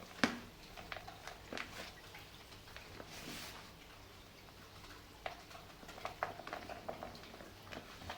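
Dried sand-and-cement lumps being crumbled by hand: scattered gritty crackles and sharp snaps, the loudest one just after the start, with a short grainy hiss about three seconds in.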